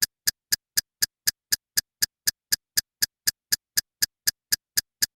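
A rapid, perfectly even ticking: about four identical short, sharp clicks a second, with silence between them.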